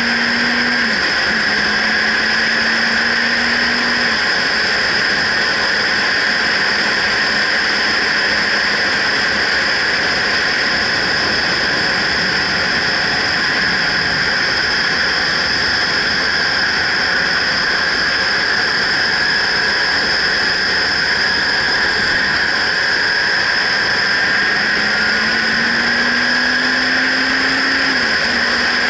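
Loud, steady wind rush over a helmet-mounted action camera on a motorcycle at road speed, with the engine note underneath. Near the start and again near the end, the engine note climbs and then drops, the pattern of gear changes while accelerating.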